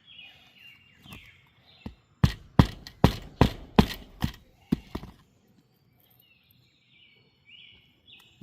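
Hammer driving roofing nails through an asphalt shingle: about eight sharp strikes over some three seconds, starting about two seconds in. Birds chirp before and after the hammering.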